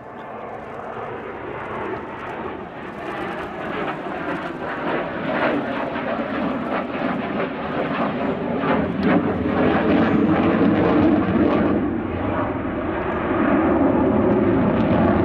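Sukhoi Su-27 fighter's twin Lyulka AL-31F turbofan jet engines in a flying display, a dense jet noise that grows steadily louder over the first two-thirds as the jet comes closer, with a crackling edge from about five seconds in, then stays loud.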